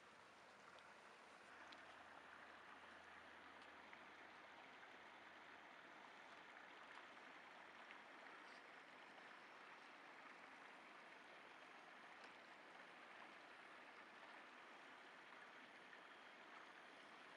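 Faint, steady rushing of river water, an even hiss without any motor whine.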